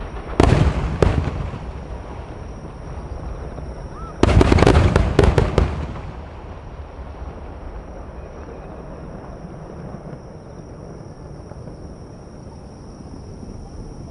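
Large aerial firework shells bursting: a couple of loud booms about half a second in, then a rapid cluster of bangs from about four to six seconds, after which the sound dies down to a low background.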